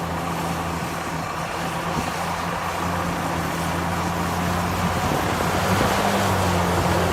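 Diesel engine of heavy earthmoving machinery running steadily under load, growing gradually louder, with a slight shift in engine pitch about six seconds in.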